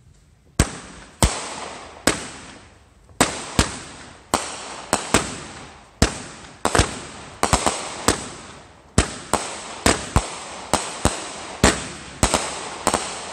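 Aerial fireworks bursting overhead in a rapid, irregular series of sharp bangs, about two a second, starting about half a second in, each bang trailing off as it fades.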